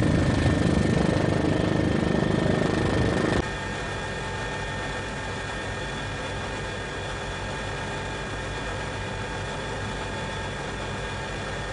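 A loud rushing noise, strongest in the low end, cuts off about three and a half seconds in. It gives way to the steady drone of an aircraft engine, heard while filming down into a volcanic ash plume.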